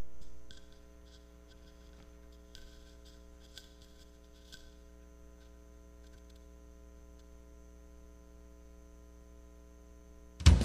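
Faint steady electrical mains hum with a few faint clicks. A loud karaoke backing track cuts in just before the end.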